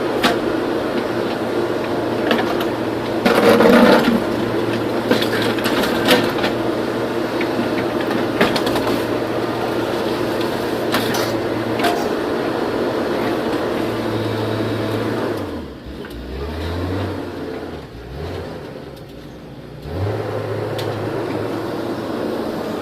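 JCB 3DX backhoe loader's diesel engine running steadily under load, with scattered knocks and clatter from the working machine. About two-thirds of the way through, the engine note drops lower and quieter and dips twice, then picks back up near the end.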